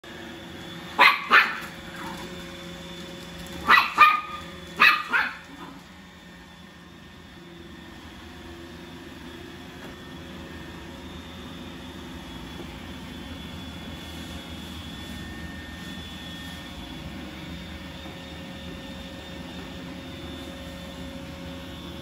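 Chihuahua puppy barking: six sharp barks in three quick pairs within the first five or six seconds. A robot vacuum hums steadily underneath, and carries on alone for the rest of the time.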